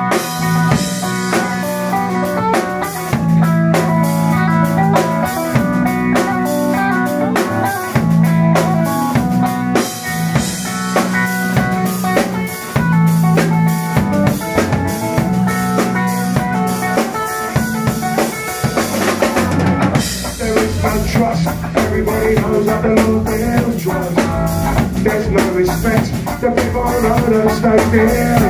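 Live rock band playing an instrumental passage: electric guitar, bass guitar and a drum kit with a driving beat. The low end fills out about twenty seconds in.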